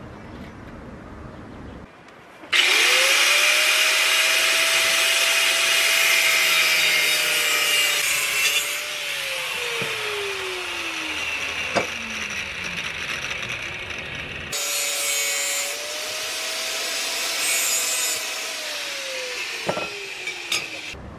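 Angle grinder with a cut-off wheel cutting square steel tubing: a harsh hiss over the motor's whine, then the whine falling as the released motor winds down. This happens twice, the second cut starting abruptly partway through, with a sharp clank after each cut.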